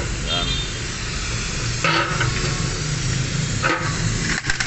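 Steady hiss with a low hum underneath, and two short scraping sounds, about two and three and a half seconds in, as the old gasket on the automatic transmission's oil pan is handled.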